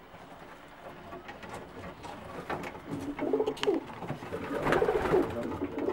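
English tippler pigeons cooing: faint at first, then repeated low coos growing louder from about two and a half seconds in.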